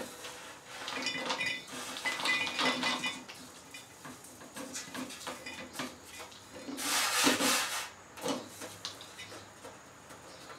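Metal baking sheet being tipped and tapped over a funnel in a glass mason jar to knock off the last toasted pecans and spices: clusters of ringing metallic clicks and rattles, then a louder scraping rush about seven seconds in.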